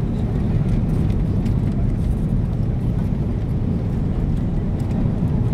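Steady low rumble of engine and airflow noise heard inside the cabin of an Airbus A330-300 on final approach, with flaps extended.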